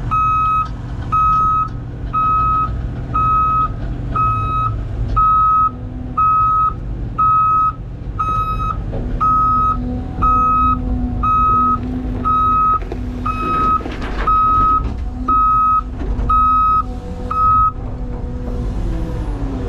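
Off-road dump truck's back-up alarm beeping about once a second as it reverses, over the steady low run of diesel engines. The beeping stops near the end.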